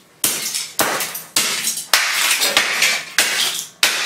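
Hammer blows smashing the broken plastic housing and circuit boards of a small CRT TV / radio / clock combo, about seven strikes a little over half a second apart, each followed by clattering, breaking fragments.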